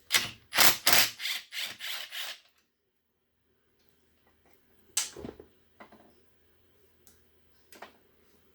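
Hand tools on a metal ground connection: a quick run of sharp clicks and clacks for a couple of seconds, a pause, then one sharp knock and a few light clicks, as the ground wire is taken off for cleaning.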